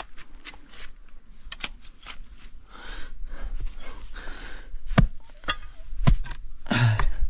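Digging by hand into soil packed in a rock hollow: a hand tool scraping and striking earth and stone in irregular strokes, with two sharper knocks about five and six seconds in.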